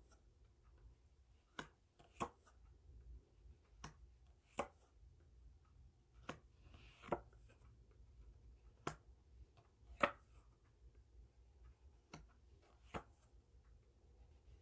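Cards being handled and set down on a tabletop: about a dozen short, sharp clicks and taps at irregular intervals, the strongest about ten seconds in.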